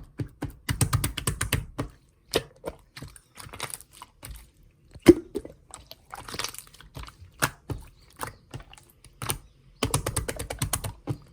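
Hands squishing and poking slime, making irregular clicking and popping sounds, with fast runs of clicks about a second in and again near the end.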